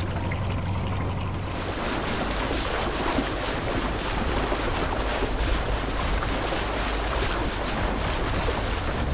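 Water splashing and lapping against the side of a small boat close to the microphone, with wind on the microphone and a low steady hum underneath; the splashing gets fuller about a second and a half in.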